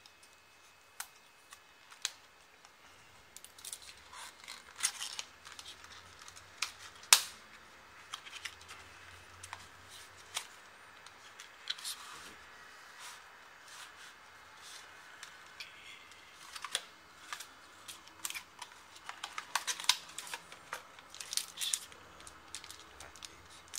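Hands opening a cardboard box and handling what is inside: scattered clicks, scrapes and rustles of cardboard and plastic packaging, with one sharp click about seven seconds in. Denser crinkling of a small plastic bag near the end.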